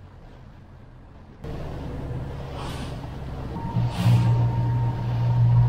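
Small motorboat's engine running underway, a steady low hum with wind and water noise, stepping up sharply in loudness about a second and a half in.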